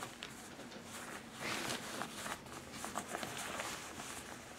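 Rustling of a Milwaukee M12 heated hoodie's fleece fabric under a hand pressing and rubbing over it, a run of soft scratchy brushes that grows louder from about one and a half seconds in.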